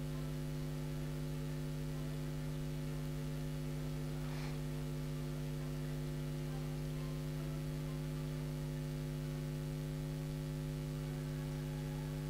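Steady electrical mains hum with a stack of buzzy overtones, from the sound system or recording chain. A faint brief noise comes about four and a half seconds in.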